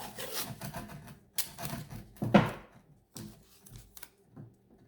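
Painter's tape being pulled off the roll, torn and pressed on by hand: irregular crackling, ripping and tapping noises, with one louder sharp rip about two seconds in.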